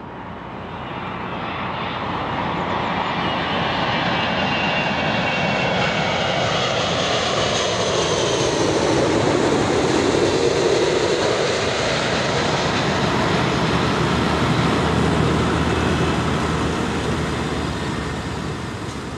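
Airbus A380 jet airliner passing close on final approach with its engines running: the noise builds, peaks about halfway through as a whine falling in pitch, then fades to a low rumble.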